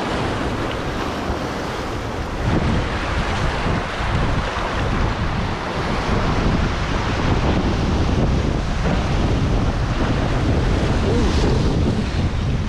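Waves washing and foaming over a shoreline of rounded boulders, with wind buffeting the microphone in a continuous low rumble.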